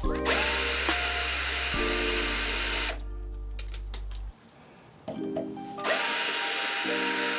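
Power drill running in two bursts: about three seconds from just after the start, then again from about six seconds in.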